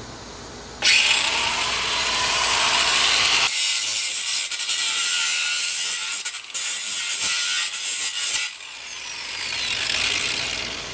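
Cordless angle grinder with an abrasive cut-off wheel cutting into the steel of an air compressor tank, a loud hissing grind with a couple of brief dips. It stops abruptly about two seconds before the end, and the wheel's whine falls away as it spins down.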